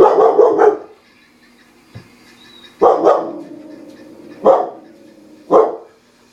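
A dog barking in sharp bursts: a quick run of about four barks at the start, a pair about three seconds in, then two single barks.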